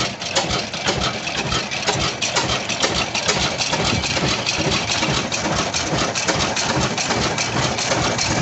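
Ruston Hornsby stationary diesel engine running with a rapid, even beat of firing strokes.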